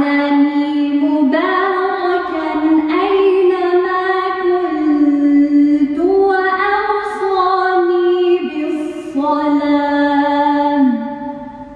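A woman's voice chanting Quranic recitation in Arabic: one long melodic phrase of held, wavering notes. Near the end the phrase stops and dies away in the stone church's echo.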